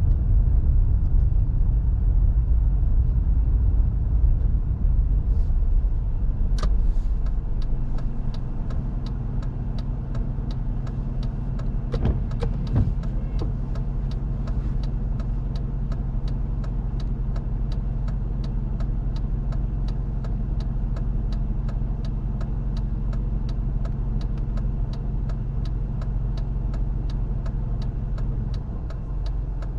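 Car heard from inside the cabin: road and engine noise eases about seven seconds in as the car comes to rest and the engine settles to a steady idle. From then on the indicator relay ticks steadily, about two to three clicks a second.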